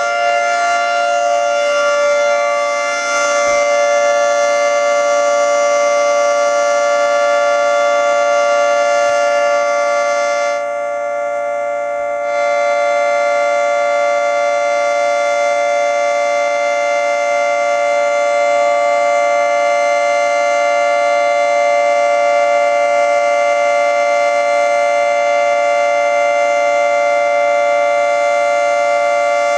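Federal Signal 2T22 dual-tone rotating warning siren sounding its steady two-note chord at full speed during a weekly test. The level holds, except that it dulls and dips briefly about eleven seconds in.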